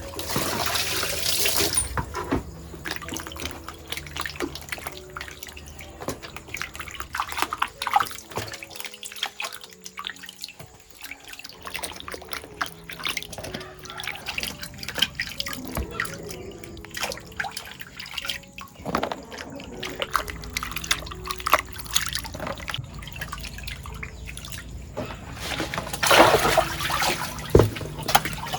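Water running and splashing in two louder spells, at the start and near the end, with small clinks and drips between them. Faint background music plays underneath.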